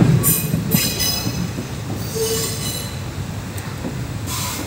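Train rolling through the station with a steady low rumble, its wheels squealing high-pitched in four short bursts.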